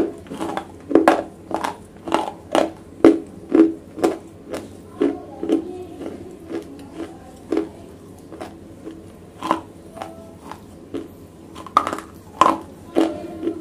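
Close-up crunching and chewing of wet black slate pieces bitten right at the microphone: sharp gritty crunches about two a second, fewer in the middle and bunching again near the end.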